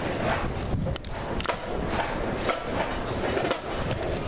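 Irregular knocks and footsteps on metal bleachers, over a steady background of crowd noise.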